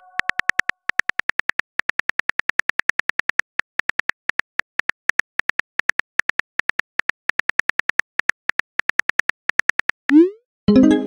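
Texting app's keyboard click sound effect: rapid, even typing clicks, about six a second with a few short pauses, as a message is typed letter by letter. About ten seconds in the typing stops and a short rising swoosh sounds as the message is sent.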